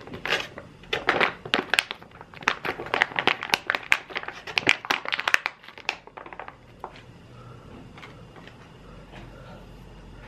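Printed plastic food pouch crinkling as it is squeezed and shaken to empty the stew inside. A rapid run of crackles lasts about six seconds, then it goes quiet.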